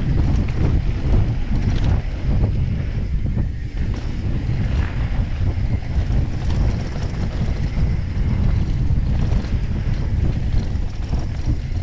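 Wind rushing and buffeting on a GoPro Max 360 camera's microphone during a fast downhill mountain-bike run, mixed with the rumble of tyres on a hard-packed dirt trail and scattered knocks and clatter from the bike over the bumps.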